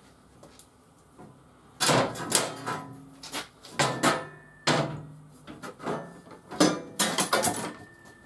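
Clanks and rattles of tools and parts handled on a Boxford metal lathe: about a dozen sharp knocks beginning about two seconds in, some ringing on briefly.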